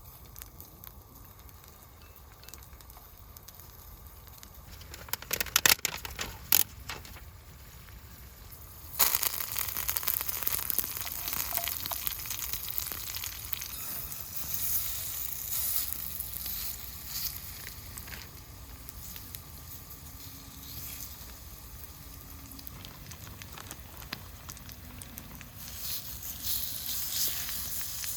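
A few sharp knocks, then food hitting a hot pan and sizzling steadily from about nine seconds in.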